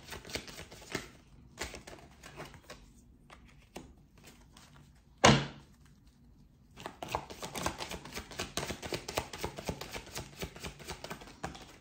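Tarot deck shuffled by hand: quick flurries of papery card clicks, sparse in the middle, with one loud knock about five seconds in.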